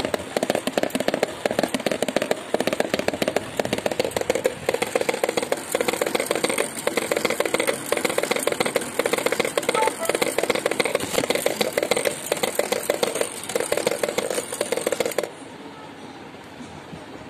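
A motor-driven metal construction-set strip rapidly beating on a plastic tub lid, making a fast, continuous rattle of taps with a drum-like tone. The taps stop suddenly about fifteen seconds in, leaving the small geared motor's quieter whir.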